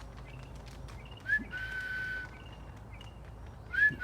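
A person whistling a call to the donkeys: a quick upward flick into a long held note, given twice about two and a half seconds apart.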